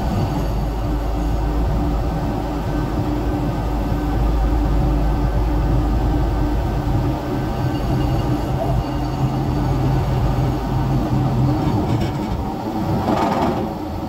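Heavy diesel engine of a crane running steadily, heard from inside the operator's cab as a constant low rumble with a steady hum. A short higher-pitched sound cuts in near the end.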